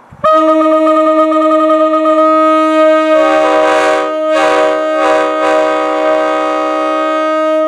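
Nathan K5 five-chime locomotive air horn blown in one long blast of about seven seconds. Only two low notes sound at first; the other bells come in about three seconds in to make the full chord, which wavers briefly before the horn cuts off suddenly.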